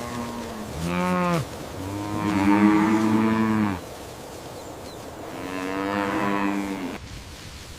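Cows mooing: a short call about a second in, then two long, drawn-out moos.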